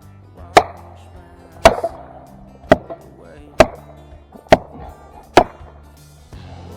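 Six hard blows about a second apart: a felling wedge being pounded into the back cut of a tree, with background music underneath.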